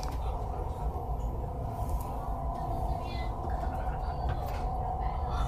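Cabin noise inside a CRH high-speed train passenger car: a steady low rumble from the running train, with a constant hum over it and a few faint clicks.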